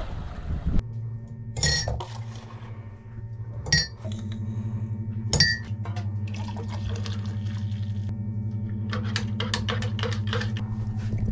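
A moment of wind noise, then sharp clinks of a kettle and crockery and hot water poured from a stovetop kettle into a coffee mug, with a quick run of clinks near the end. A steady low hum runs underneath from about four seconds in.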